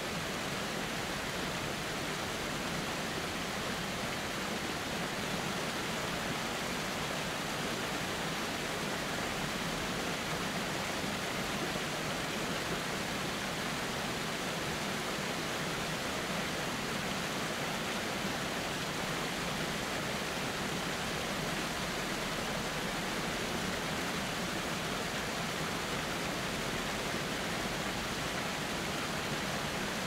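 Steady rushing of a waterfall, an even hiss of falling water with no change throughout.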